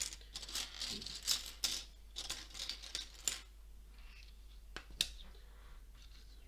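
Small plastic Lego pieces being sorted by hand: clicking and rattling as pieces are picked up and set down, busiest in the first three seconds, then a couple of single clicks.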